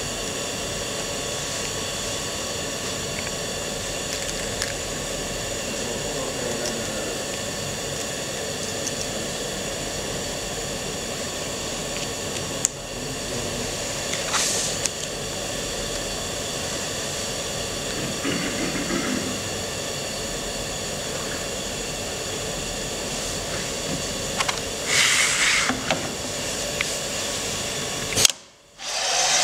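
Steady workshop hum made of several constant tones, with light knocks and rustles from hands handling a clear plastic sewing template and paper. Two short hisses break through, one about halfway and a louder one near the end, and the sound drops out briefly just before the end.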